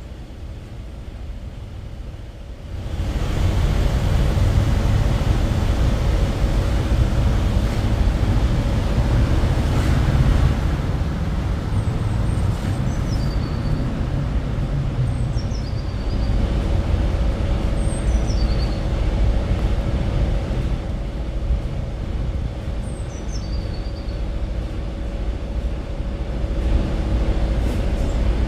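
Steady low rumble of road traffic with a faint hum, jumping louder about three seconds in. Over it, a small bird gives four short high calls, each sliding downward.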